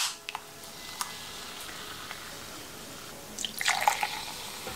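A freshly opened can of cola fizzing, with a couple of small clicks from the can early on. From about three and a half seconds in, the cola is poured into a glass, splashing and fizzing.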